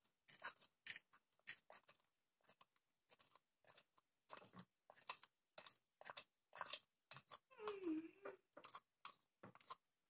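Faint, irregular scraping and crackling of a sandy mix pouring and sliding out of a small plastic bucket into a steel bowl. A short squeak comes about eight seconds in.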